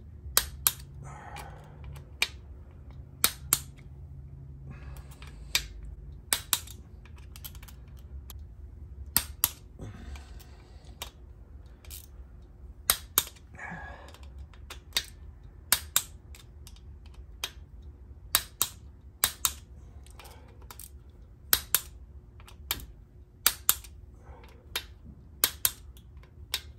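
Click-type torque wrench clicking over as each cam cover screw reaches its set torque of 120 inch-pounds: sharp clicks every second or two, often in quick pairs.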